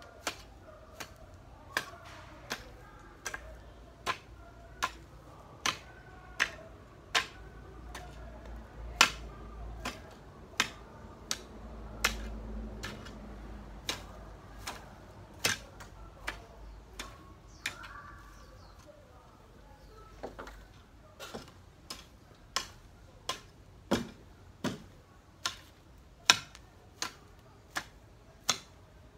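A long-handled garden hoe chopping into grassy soil in a steady rhythm, a sharp strike a little more than once a second, coming a bit quicker near the end.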